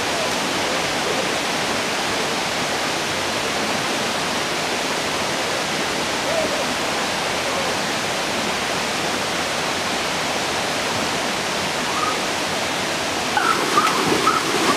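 Steady rush of a small waterfall pouring into a stream pool. About 13 seconds in, splashing as people plunge into the water joins it.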